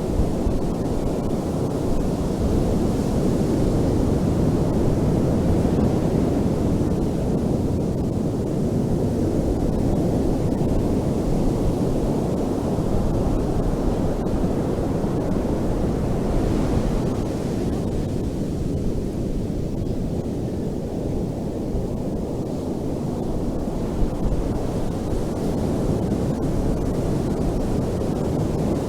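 Ocean waves washing on a beach: a continuous rumbling surf that swells about three seconds in and again around sixteen seconds in.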